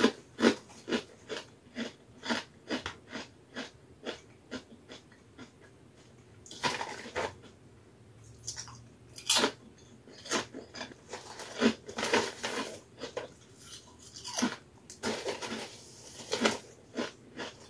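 Kettle-cooked potato chips being chewed close to the microphone: a quick, uneven run of crisp crunches, several a second. The chip bag crinkles now and then as a hand reaches back in.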